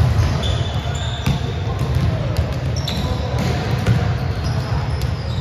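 Volleyballs being hit and bouncing on a gym floor: a few sharp smacks spaced about a second apart. Short high squeaks, typical of sneakers on the court, come in between.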